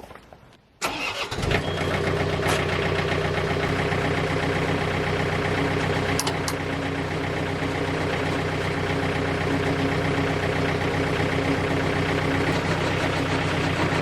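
Tractor engine starting just under a second in, then running at a steady speed to drive a PTO wood chipper.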